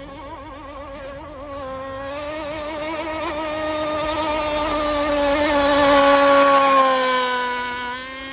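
Small gas engine of a radio-controlled boat running at speed on the water. It grows louder as the boat approaches, is loudest about six to seven seconds in, then fades, its wavering high note dipping slightly as the boat goes by.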